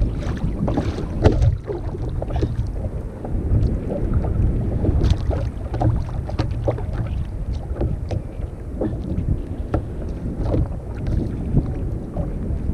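Wind rumbling on the microphone, with irregular small knocks and water splashes against a sit-on-top kayak.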